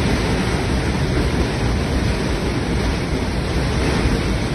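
Floodwater rushing in a steady, loud roar with a deep rumble.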